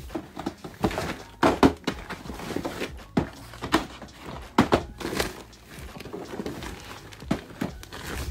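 Irregular knocks and thuds with rustling, from a phone being handled around a fabric bag, several louder knocks scattered through.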